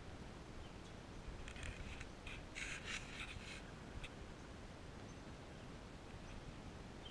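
Brief bouts of scratchy rustling, bunched between about one and a half and three and a half seconds in, over faint steady background noise.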